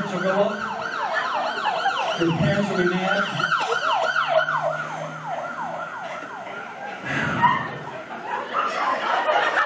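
Police siren sound effect in fast yelp mode played over a PA system: quick falling wails, three or four a second, that stop about six seconds in.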